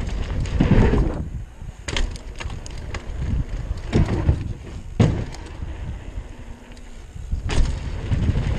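Downhill mountain bike on a rough descent, heard from a helmet camera: wind rushing over the microphone and tyres rolling on dirt, with sharp knocks and clatters from the bike hitting bumps and a wooden ramp, several of them through the middle. The wind rush eases in the middle and comes back strongly near the end.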